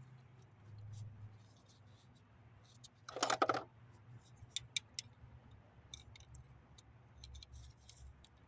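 Light metal clicks and scrapes of hand tools prying at an engine's water pump, with one short squeak about three seconds in, over a low steady hum.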